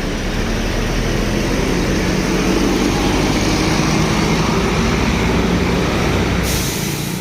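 A bus engine running with road noise as the bus passes close, the sound swelling in the middle and easing toward the end.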